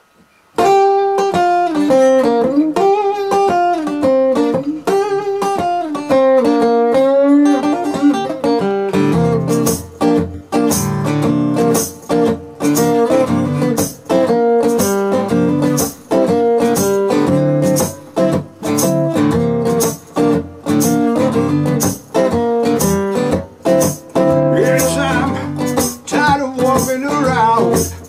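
Acoustic guitar playing a blues intro. It opens with a picked single-note melody, then from about eight seconds in fills out into rhythmic strumming with bass notes.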